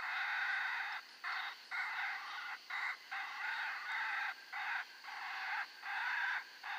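Animal distress call played through an electronic predator caller to lure coyotes: raspy squealing cries repeated in short bursts, roughly one a second, with brief gaps between them.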